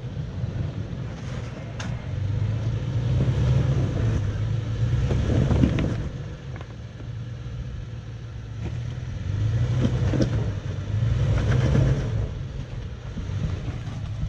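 Toyota 4Runner's engine working at low speed as it crawls over rocks, swelling louder twice as the driver gives it throttle, with a few sharp knocks from the tyres and underbody on rock.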